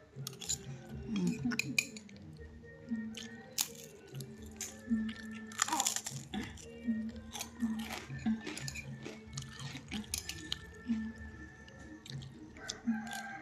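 Close-up eating sounds: chewing and crunching food, with many small sharp clicks scattered irregularly.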